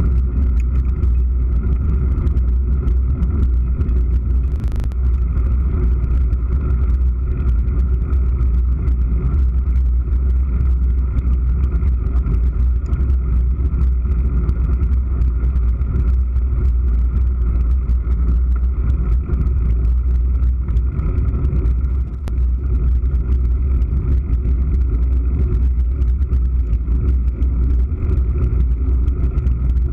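Steady low rumble of wind and trail vibration picked up by a GoPro Hero3 action camera on a mountain bike riding dirt paths, with fine rattling clicks throughout and one sharper click about five seconds in.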